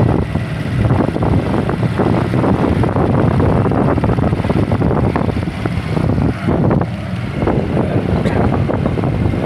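A moving vehicle's engine and road noise, a steady low rumble, with wind buffeting the microphone as it drives along.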